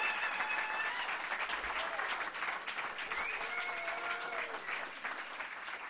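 Audience applauding, with a few held cheers over the clapping, easing off slightly near the end.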